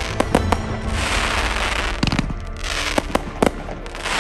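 Aerial consumer fireworks going off: sharp bangs of bursting shots, a quick run near the start and more between about two and three and a half seconds in, with stretches of crackling hiss from bursting stars in between.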